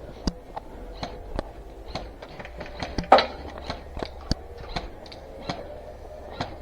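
A run of sharp clicks and snaps at irregular intervals, roughly two or three a second, the loudest a little after three seconds in.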